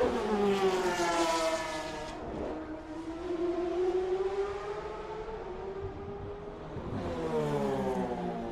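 Le Mans race cars passing one after another: a car's engine note drops sharply in pitch as it goes by, then carries on with rises and falls as it downshifts into the corner. A second car comes through about seven seconds in, its engine pitch again falling.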